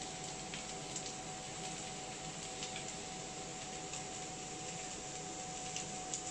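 Chopped okra and onion frying in oil in a pan, a steady low sizzle with a steady tone running through it. A few faint clicks come as ginger is cut by hand with a small knife over the pan.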